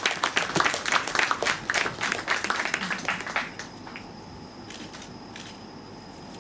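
Audience applauding, with sharp hand claps close by, dying away about three and a half seconds in.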